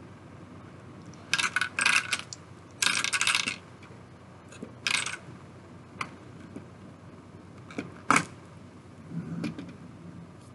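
Plastic Lego pieces rattling and clicking as a built Lego fire plane is handled. There are two clattering bursts in the first few seconds, a shorter one around five seconds in, and single sharp clicks around six and eight seconds in.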